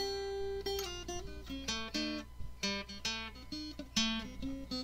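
Background music on acoustic guitar: a run of plucked notes and light strums, each note dying away after it is struck.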